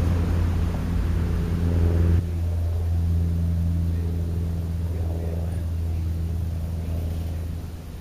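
Steady low droning hum of a running motor, with a rushing hiss over it that stops abruptly about two seconds in; the hum fades near the end.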